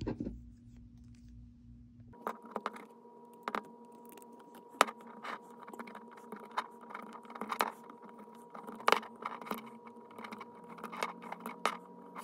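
Irregular light clicks and scrapes of a knitting loom and hook being worked, as yarn loops are lifted and flipped over the pegs. A faint steady hum comes in about two seconds in.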